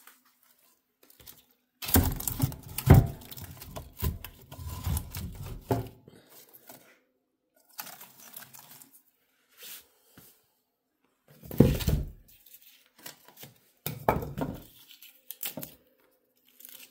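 Split firewood and kindling being loaded by hand into a wood stove's steel firebox: wood knocking and scraping against wood and the stove, with dry rustling. It comes in several irregular bursts, the busiest lasting about four seconds near the start, then shorter ones later.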